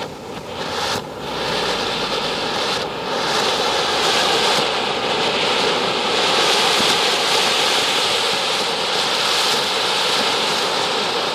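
Anar (flower pot) ground fountain firework burning, spraying sparks with a steady rushing hiss that grows louder over the first few seconds and then holds level.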